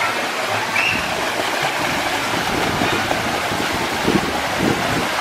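Pool water splashing and churning steadily as swimmers stroke and kick.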